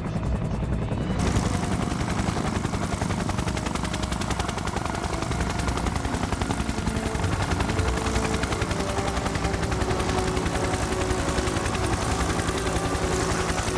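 Helicopter rotor chop: a steady, rapid, even beat over a low rumble, growing sharper and fuller about a second in.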